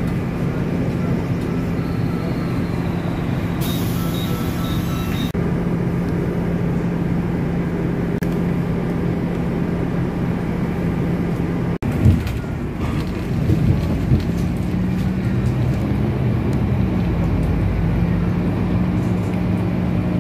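City bus running, heard from inside the cabin: a steady engine hum with road noise. There are a few short electronic beeps about four seconds in, and in the second half the engine pitch shifts and rises as the bus gathers speed.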